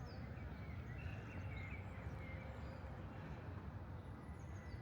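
Small birds chirping over a steady low rumble of city background. A few chirps come in the middle, and near the end one bird starts a run of high, quickly repeated falling notes.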